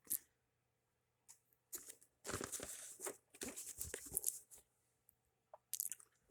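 Faint crinkling and rustling of plastic being handled, in uneven bursts, with a sharp click at the start and a few small clicks near the end.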